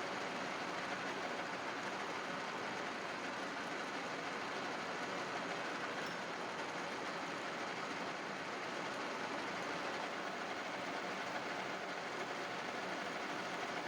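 Metal lathe running with a steady mechanical noise that holds at one level throughout, as in machining a metal pulley.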